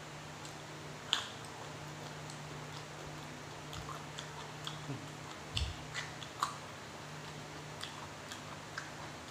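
Close-up chewing and crunching of raw Thai eggplant and spicy minced raw beef: a sharp crisp bite about a second in, then irregular wet crunchy clicks, over a steady low hum.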